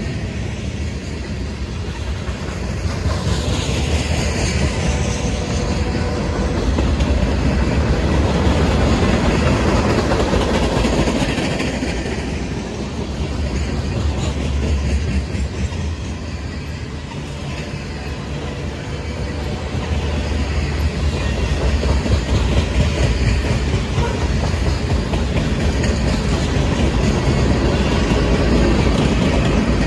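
Freight train cars rolling past: a steady rumble of steel wheels on rail with clickety-clack over the rail joints. The sound swells and eases in waves as covered hoppers and tank cars go by.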